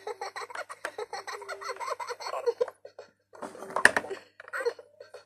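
LeapFrog Hug & Learn Bears talking book's speaker playing Brother Bear's recorded giggle, a quick run of laughs that stops about two and a half seconds in. A stiff plastic-and-board page is then flipped with a sharp clack and rustle about four seconds in.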